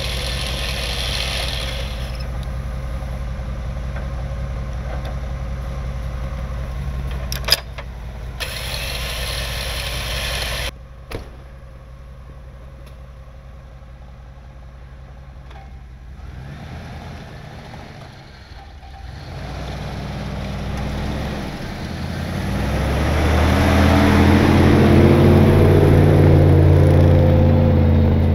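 Vehicle engines idling steadily, with a sharp click partway through, then quieter. Near the end a track-equipped Jeep's engine comes closer and revs up as it drives, growing loud, and this is the loudest part.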